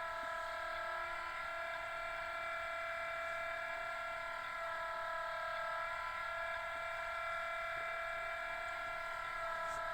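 Class 66 diesel engine sound from a Loksound v4 DCC decoder, played through the model locomotive's twin small speakers, idling steadily just after start-up.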